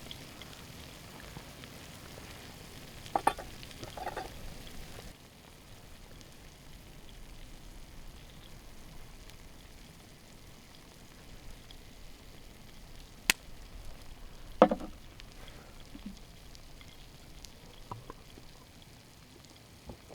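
Food sizzling faintly in a pan over a campfire, with a few scattered sharp clicks and knocks.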